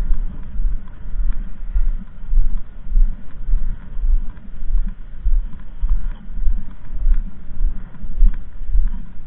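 Footsteps of a person walking at a steady pace on a frosty concrete pier, heard as dull low thumps about twice a second.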